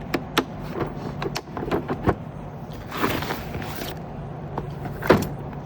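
Hand tools and tool cases being handled in a tool box: a quick run of clicks and knocks, a sliding scrape about three seconds in, and a louder knock just after five seconds, over a steady low hum.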